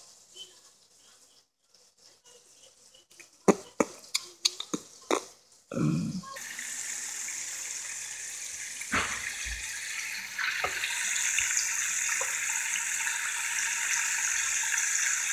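Flour-coated chicken thighs frying in a pot of hot oil: a steady, dense sizzle that sets in about six seconds in and grows a little louder after about ten seconds. Just before it comes a quick run of sharp clicks and knocks.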